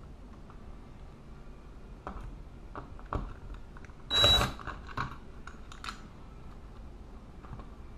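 Scattered light clicks and taps of hands shifting a plastic thermostat backplate against a wall, with one loud, short scrape about four seconds in.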